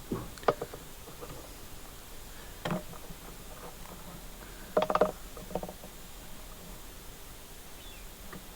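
A few scattered knocks and clicks of small parts being handled, with the loudest cluster about five seconds in.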